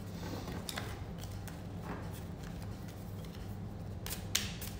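A deck of reading cards being handled and drawn: a few soft clicks and card snaps, the loudest about four seconds in, over a steady low hum.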